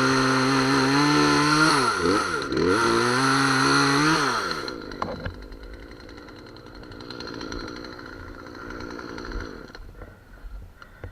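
Chainsaw running at high revs while cutting, its pitch dipping and climbing again as it bogs in the wood. It drops off abruptly about five seconds in, leaving a much fainter steady engine sound.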